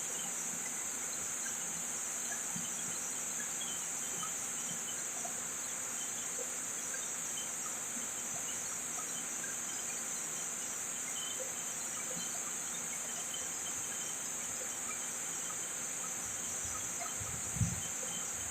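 Steady, high-pitched chorus of insects, crickets or the like, with a single soft low knock near the end.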